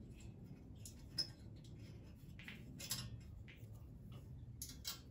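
Faint clicks and light scraping of hands working small metal parts on an electric motor held in a steel scooter frame, with a few sharp ticks, the loudest about a second in.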